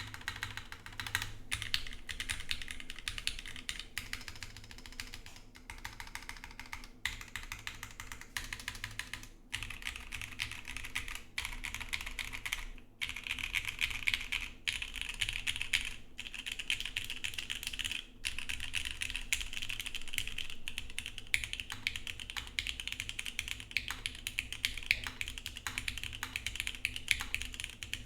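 Fast, continuous typing on a Geonworks F1-8X mechanical keyboard with lubed SP-Star Luminos switches, an aluminium plate and CRP keycaps: a dense run of keystroke clicks with a few short pauses.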